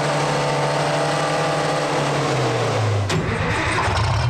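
The tracked rig's four-cylinder engine running steadily, its speed dropping about two seconds in. There is a sharp click about three seconds in, after which the engine runs lower and less evenly.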